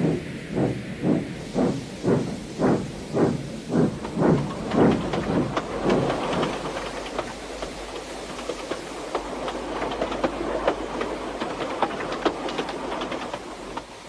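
Steam locomotive chuffing about twice a second, the beats quickening slightly. They then blur into a steady rush of steam and running gear with scattered sharp clicks, fading near the end.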